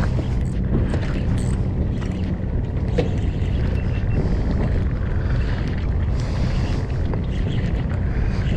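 Steady low rumble of wind on the microphone over a boat engine's hum, with small clicks and rattles as a spinning reel is cranked against a hooked fish.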